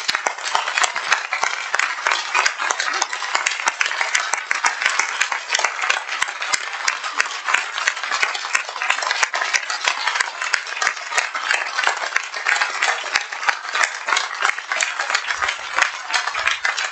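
Audience applauding, a loud, dense patter of many hands clapping that keeps up without a break.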